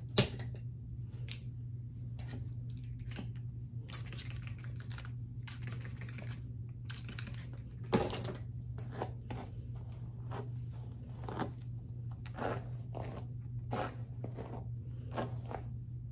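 Hands working wig hair wet with water and leave-in conditioner: a run of short, irregular rustling and crinkly handling noises with a few sharp clicks, over a steady low hum.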